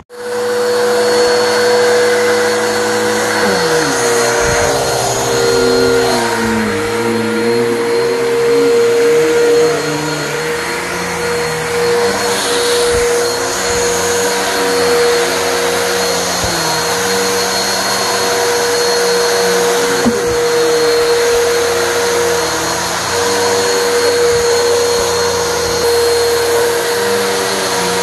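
Vacuum cleaner switched on and run over carpet, pre-vacuuming dry soil and powder out of it before steam cleaning: a steady high motor whine over a lower hum that wavers as it works the carpet.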